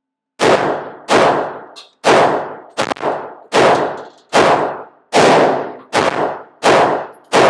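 Glock 45 9mm pistol fired in steady slow rapid fire: about ten sharp shots, roughly one every three-quarters of a second, each trailing off in a short echo, beginning about half a second in.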